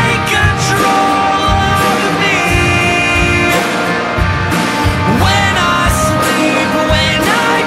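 Background music: a song with a steady drum beat and a melody with gliding, sung-sounding notes.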